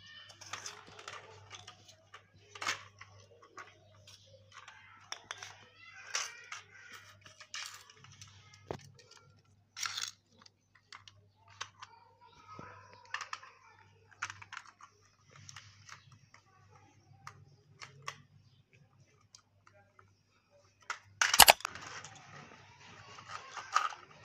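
Orange tabby cat scuffling with a small plastic toy car on concrete: irregular clicks, rattles and scrapes of the toy, with one sharp, loud clack near the end followed by a few seconds of rougher scuffling. A faint low hum runs underneath for most of it.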